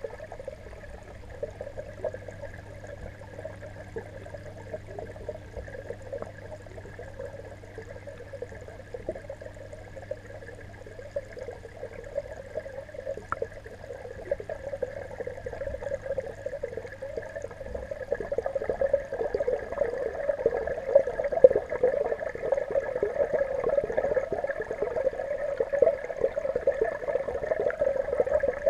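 Steady crackling, bubbling water noise picked up by a camera under water, growing louder over the second half. A low steady hum underneath fades out about halfway through.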